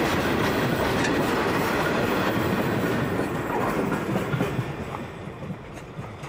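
Empty VHAF grain hopper wagons rolling past, steel wheels clacking over the rail joints. The sound fades away over the last few seconds as the end of the train recedes.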